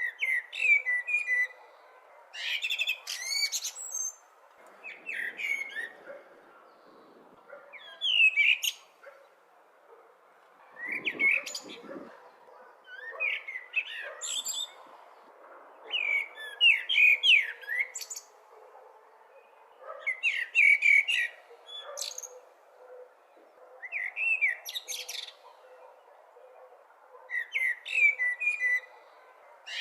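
Blackbird singing: short warbling phrases, each ending in a higher twitter, repeated about every two to three seconds over a faint steady hiss.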